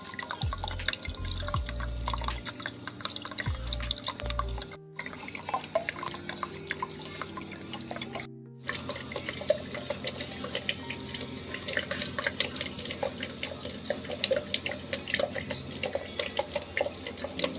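Water splashing and trickling steadily in a small homemade Shivling tabletop fountain, with background music playing over it. The sound cuts out completely for a moment twice, once about five seconds in and again around eight seconds in.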